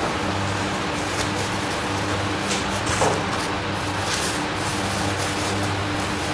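Steady electric machine hum, a constant low drone over an even background noise, with thin plastic bags crinkling a few times as rice-cake blocks are slipped into them, loudest about three seconds in.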